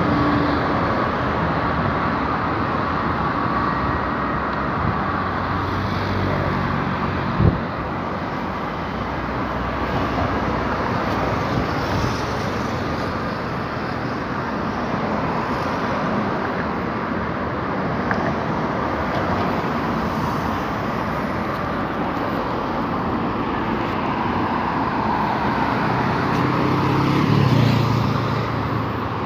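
Steady road traffic noise, with one sharp knock about seven seconds in and a vehicle getting louder as it passes near the end.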